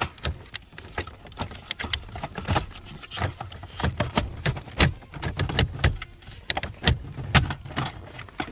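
Irregular clicks and knocks of hard plastic as a VW Golf 5's central electrics module and its plastic carrier are worked loose from under the dashboard, the plugged-in relays bumping against the surrounding plastic.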